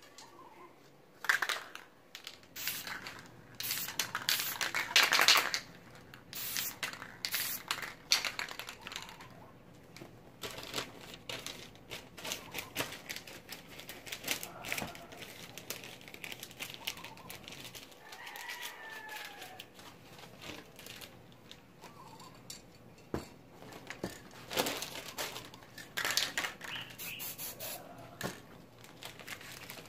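Sheets of magazine paper crinkling and rustling as they are handled over a spray-painted canvas, with irregular clicks, and a couple of short hisses from an aerosol spray-paint can.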